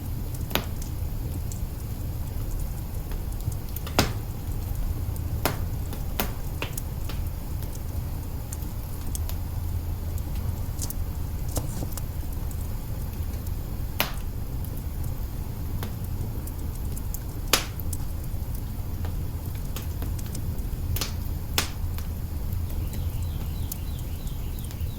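Log fire burning in an open hearth: a steady low rumble with irregular sharp crackles and pops, the loudest about four seconds in and again near the middle.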